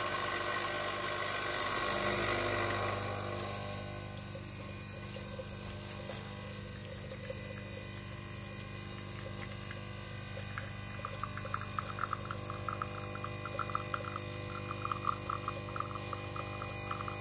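Espresso machine pump running with a steady hum while a shot pulls into the cup. It is louder and noisier for the first three seconds, then settles. From about ten seconds in, irregular faint crackles join it.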